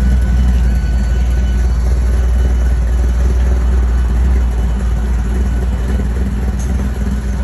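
Old hot rod coupe's engine running with a low, steady exhaust rumble as the car rolls slowly past.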